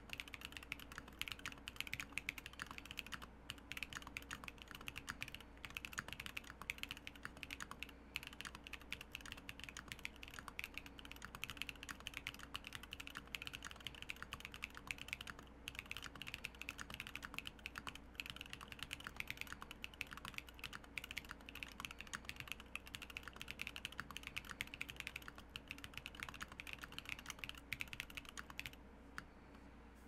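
Continuous rapid typing on a KBDFans Odin V1 mechanical keyboard: KNC Keys Green Jacket tactile switches on an FR4 plate with Infinikey Blacklight keycaps, each keystroke a sharp click. The typing stops shortly before the end.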